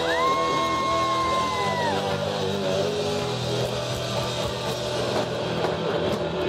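Live rock band playing with electric guitar. A single high note swoops up, holds for about two seconds and falls away near the start.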